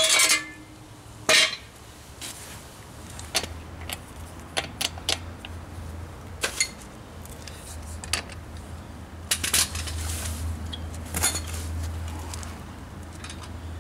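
Metal jack gear and hand tools clanking and clinking on a concrete floor in scattered separate knocks, the loudest right at the start and about a second in.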